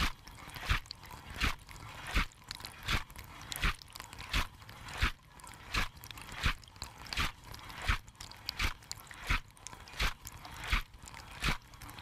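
Dishwasher wash cycle heard from inside the tub: the rotating spray arm sweeps past and blasts water at the camera about every 0.7 seconds, a regular swishing splash, over the steady low hum of the circulation pump.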